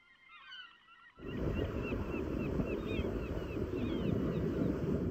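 Surf breaking and washing over a rocky shore, setting in about a second in as a steady rush, with short, repeated bird calls throughout.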